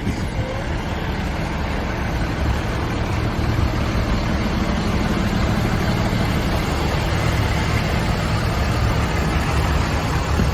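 Steady low hum of vehicle engines running, with an even hiss over it.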